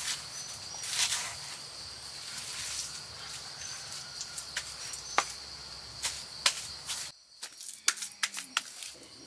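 Insects droning steadily on one high pitch, with scattered sharp clicks and knocks over it. The insect sound cuts off suddenly about seven seconds in, leaving only the clicks.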